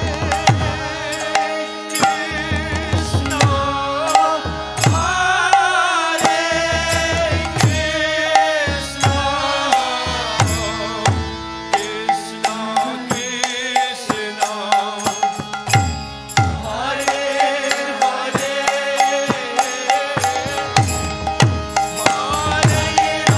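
Devotional kirtan music: harmonium chords under singing voices, with hand cymbals and a hand drum whose deep strokes glide down in pitch, keeping a steady beat.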